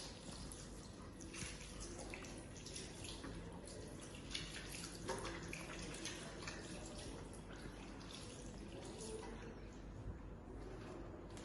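Water running from a tap and splashing in a sink, a steady hiss broken by small irregular splashes.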